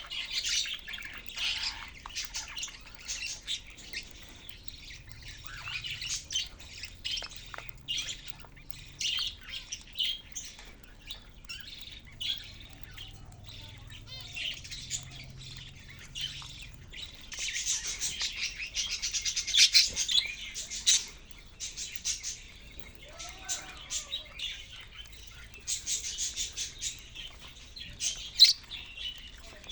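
Caged budgerigars chirping and chattering: many quick, high chirps that overlap. They grow into denser bursts of chatter a little past the middle and again near the end.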